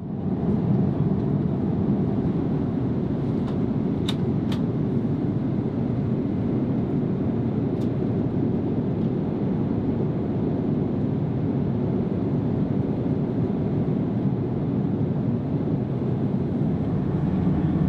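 Steady cabin noise of an Airbus A330-900neo in cruise flight: a constant low rush of airflow and engine noise. A few faint clicks come about four seconds in and again near eight seconds.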